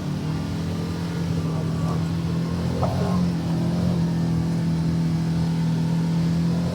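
UTV engine running at steady throttle, its pitch rising a little about three seconds in and then holding.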